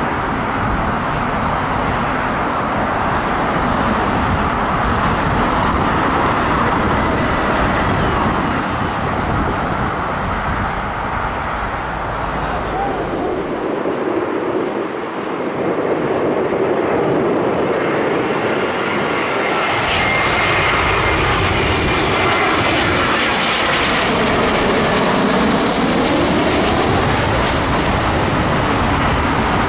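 Jet airliner landing on low final approach, its engines running with a steady loud rushing noise. In the last third the sound grows brighter with a high whine and a sweeping, phasing tone as the aircraft passes close.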